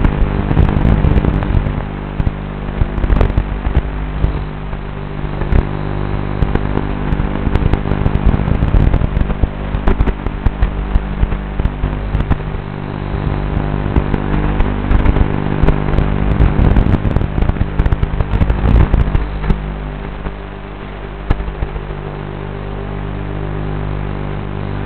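Onboard audio of a tiny whoop micro quadcopter in flight: a steady buzz with crackling and rushing noise that rises and falls. It settles into a smoother, steadier buzz about twenty seconds in.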